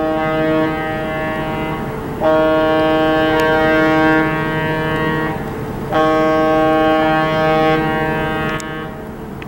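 Cruise ship MS Eurodam's horn sounding three long, steady blasts, each holding several pitches at once. The first is already sounding and ends about two seconds in; the others start at about two and six seconds in. The blasts are the ship's departure signal.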